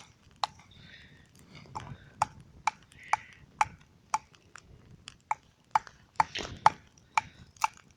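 A blade hacking at wood: a steady run of sharp chopping strikes, about two a second, each with a short ring.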